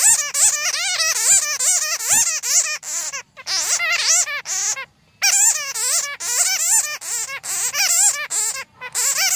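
Bats chattering: a dense stream of rapid, warbling squeaks, broken by brief pauses about three and five seconds in.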